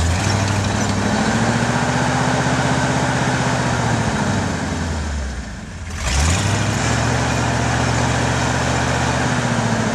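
Pickup truck engine revving while the truck is stuck nose-down in a snow crack: it revs up and holds, eases off about four seconds in, then revs up again about six seconds in and holds.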